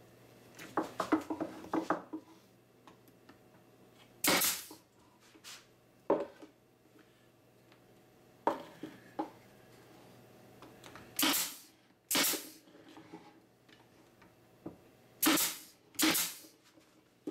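Pneumatic stapler fed by an air hose, firing staples into wooden shims on plywood: about seven short, sharp shots a second or more apart. A quick clatter of wood being handled comes about a second in.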